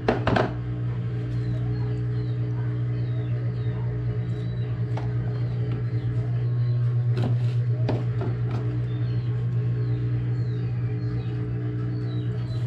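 A steady low mechanical hum, like a motor or engine running, with small birds chirping faintly and a few sharp knocks.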